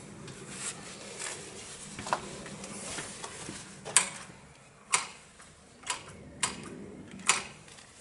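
A handful of sharp ticks, roughly one a second, in the second half, over faint background noise.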